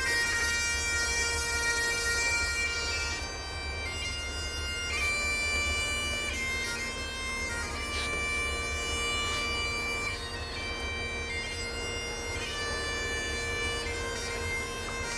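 Bagpipes playing a tune over their steady drone, with a low rumble underneath.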